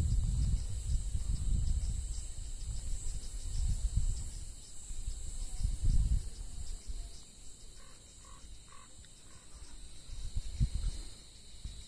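Wind buffeting the microphone in uneven gusts, easing off after about six seconds, over a steady high-pitched drone of insects, with a few faint chirps about eight seconds in.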